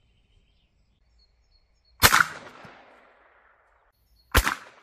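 Two sharp bangs about two and a half seconds apart, each trailing off in a fading echo: a 9mm Luger FMJ cartridge set off in a striker fixture outside a gun barrel, unconfined by any chamber.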